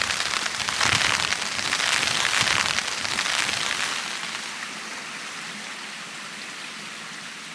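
Rain pattering on a tent's flysheet, heard from inside the tent. It is dense and loud for about the first half, then eases to a quieter steady hiss.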